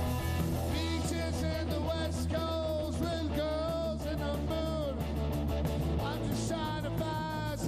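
Rock song: a man singing over guitar, with a low bass line and drums keeping a steady beat.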